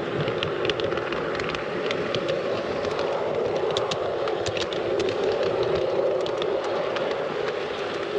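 G scale model train running along garden railway track: a steady hum from the locomotive's drive, with frequent light clicks and ticks from the wheels on the rails.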